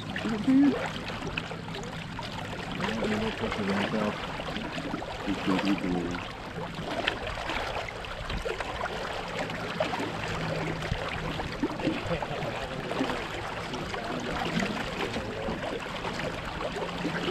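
Water rushing and splashing along the hull of a Catalina 22 sailboat under sail, a steady wash with small surges.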